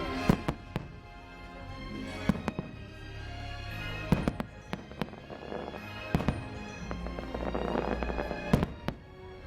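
Fireworks bursting in sharp, irregular bangs, often in quick pairs or clusters, over orchestral show music.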